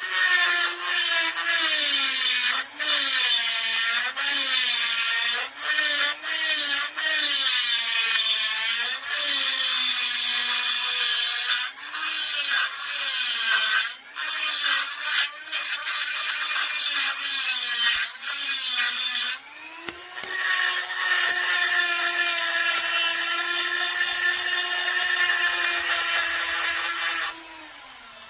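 High-speed rotary grinder whining as it grinds out the ports of a McCulloch S550 chainsaw cylinder, its pitch dipping and wavering each time the bit bites, with short breaks. About two-thirds through it runs steadier and higher for several seconds, then slows and fades near the end.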